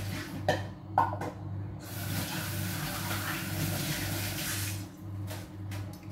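Kitchen tap running into the sink for about three seconds as a mug is rinsed, after two short knocks of dishware near the start.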